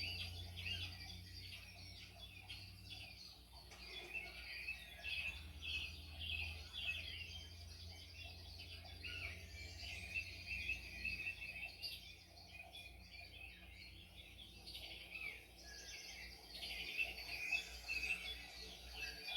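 Several small birds chirping and singing, with many short rapid calls over a low steady hum.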